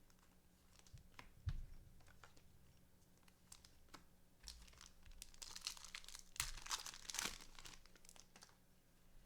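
Faint crinkling and tearing of trading card pack wrappers as packs are ripped open, with scattered light clicks; the rustling is heaviest a little past the middle.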